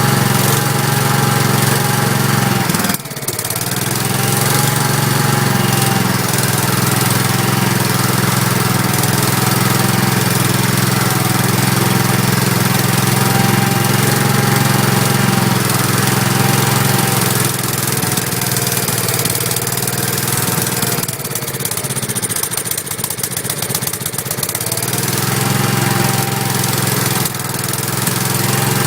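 Kohler K341 16 hp single-cylinder engine of a Gravely 5865 walk-behind tractor running steadily. Its speed sags briefly about three seconds in and again for a few seconds past the twenty-second mark, then recovers.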